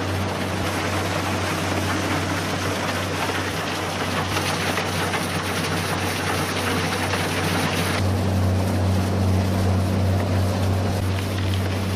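Heavy wood-processing machine running under load: a steady deep hum beneath dense grinding noise. About eight seconds in the sound changes abruptly to a duller run with a stronger low hum.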